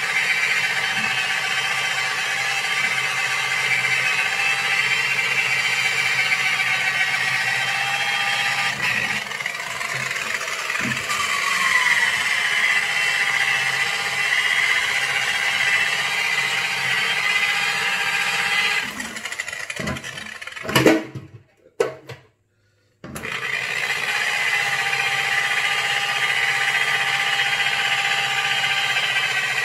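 Electric buffer with a polishing pad running steadily at low speed with a high whine while finishing-polishing a headlight lens. It wavers briefly about a third of the way in. About two-thirds through it cuts out, a few knocks follow, then a second of silence, and it starts up again.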